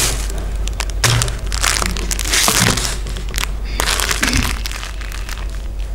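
Crinkling plastic wrapper of a convenience-store rice ball being handled, in a run of short crackling bursts that thin out near the end.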